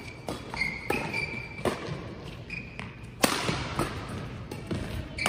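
Badminton rally: several sharp racket strikes on the shuttlecock, the loudest just past halfway, with short high squeaks of court shoes and footfalls on the floor.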